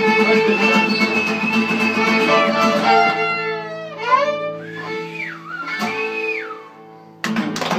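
Live music: held string notes over guitar accompaniment, winding down into sliding notes that fade away. Clapping and voices break in abruptly near the end.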